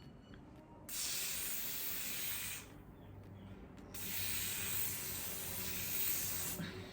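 Got2b aerosol spray can hissing in two sprays, one of about a second and a half starting about a second in and a longer one of about two and a half seconds: holding spray being applied to glue down a frontal wig's lace.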